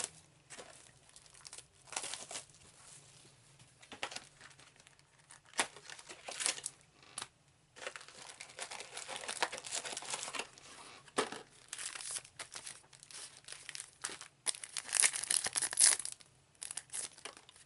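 Trading-card packaging being torn open and crinkled by hand. The rustling and tearing comes in irregular bursts, loudest near the end.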